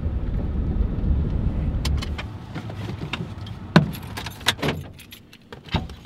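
Low road and engine noise inside a Ford pickup's cab that drops away about two seconds in, followed by a run of sharp clicks and clatter as the driver moves about in the parked truck to get out, loudest near the middle and again near the end.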